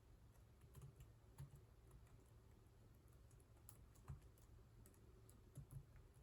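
Computer keyboard being typed on during touch-typing practice: faint keystroke clicks at an uneven pace, with a few louder taps.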